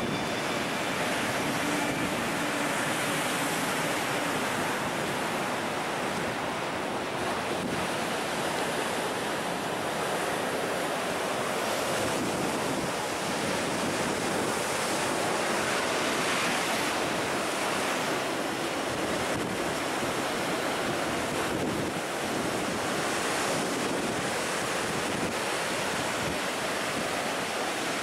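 North Sea waves breaking and surging over groynes and against a sea wall: a steady, unbroken wash of surf, with wind buffeting the microphone.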